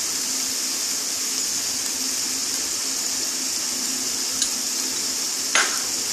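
Grated bottle gourd and prawns sizzling gently in a kadai over a gas flame: a steady hiss over a faint low hum, with two faint clicks near the end.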